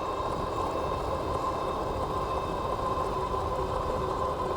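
Dual hub motors of an all-wheel-drive e-bike whining steadily at speed, over an even low rumble of wind and tyre noise.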